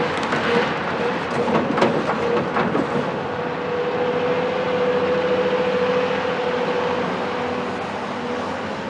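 Caterpillar 374 excavator's Cat C15 ACERT diesel engine running under load with a steady whine, and a run of sharp knocks and crunches of demolition rubble in the first three seconds.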